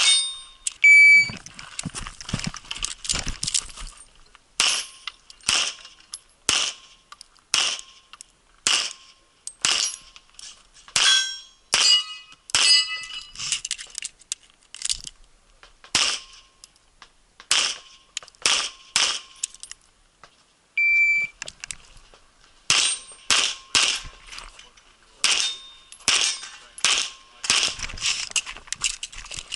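Stainless 1911-style pistol firing minor-power-factor loads in quick strings, mostly pairs of shots about half a second apart, with short pauses between positions. Some hits on steel targets ring with a bright ding, clearest about a second in and again about two-thirds of the way through.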